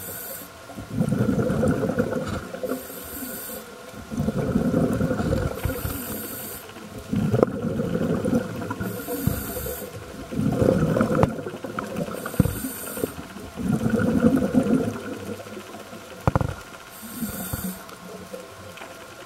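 Underwater diver breathing through a demand regulator: a regular cycle of breaths about every three seconds, each a short hiss followed by the rumbling bubbles of the exhalation.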